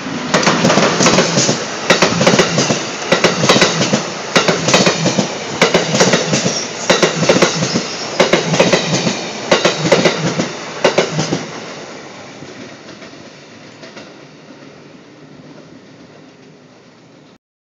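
Amtrak AEM-7 electric locomotive and Amfleet coaches passing close at speed: a loud rush of wheel and rail noise with rapid clickety-clack as the wheels cross rail joints. It fades away about twelve seconds in as the train recedes.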